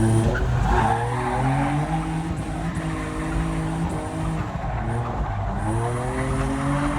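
Drift car engine at high revs, the pitch dropping just after the start, holding, dipping briefly around five seconds in and then climbing again, over tyre skid noise as the car slides on the wet track.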